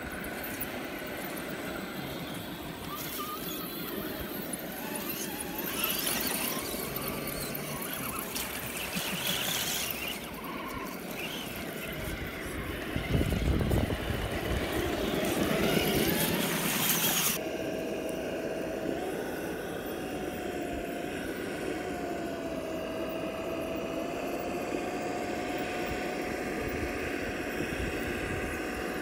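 Radio-controlled scale crawler trucks driving through muddy water: electric motor and gear whine with splashing that comes in louder bursts, cutting off suddenly about two-thirds of the way in. After that a steady high whine runs on, wavering a little in pitch.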